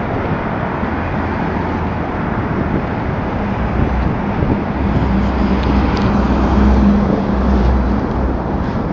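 City street traffic noise from passing cars and taxis. A nearby engine's low hum swells in the middle and is loudest about seven seconds in, then fades.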